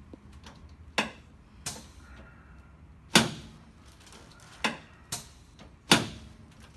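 Six sharp clacks at uneven intervals, two of them louder than the rest, from a Gonstead chiropractic knee-chest table being worked during a spinal adjustment.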